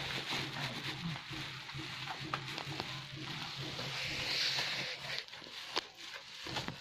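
Plastic bubble wrap crinkling and rustling as it is pulled and handled, with a louder stretch of crinkling around four to five seconds in.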